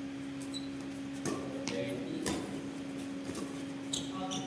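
Badminton rackets striking a shuttlecock during a fast rally: a series of sharp hits about half a second apart, over a steady low hum.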